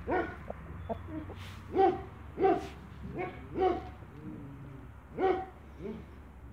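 Young Light Brahma roosters clucking: short, low calls repeated about seven times at uneven intervals.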